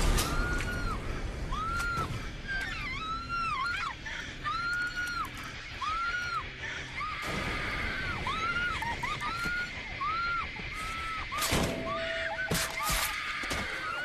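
A woman screaming again and again in terror, each scream rising and falling, about one a second, over a film score. A few sharp hits come just before the end.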